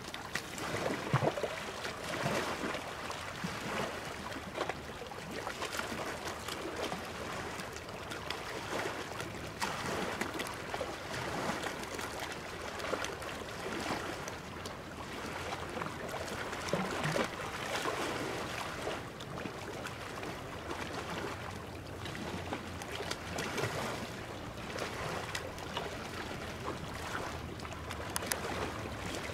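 Choppy sea water lapping and splashing in small irregular slaps.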